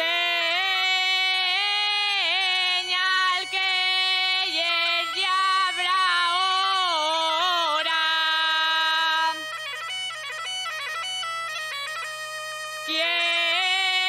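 Asturian tonada sung by a young woman in long, ornamented melismatic phrases over the steady drone of an Asturian bagpipe (gaita asturiana). The singing breaks off about nine seconds in for a quieter stretch, then comes back near the end.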